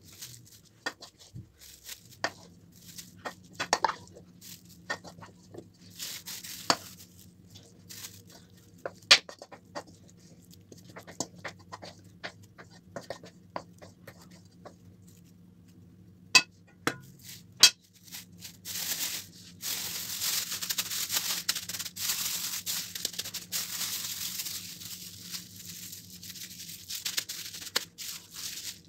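Thin plastic freezer bag rustling as leek filling is spooned into it from a metal pan with a wooden spoon, with sharp knocks of the spoon against the pan. From about two-thirds of the way in comes a long stretch of crinkling as the bag is twisted and knotted shut.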